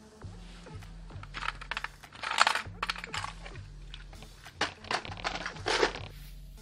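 Small metal parts clinking and rattling as they are handled, with a cluster of louder rustling and clattering twice, over quiet background music.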